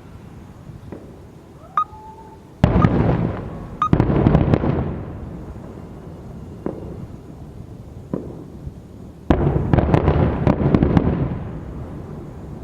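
Aerial fireworks display: a short whistle, then two loud bursts of booming and dense crackling, each lasting two to three seconds and about six and a half seconds apart, with single pops in between.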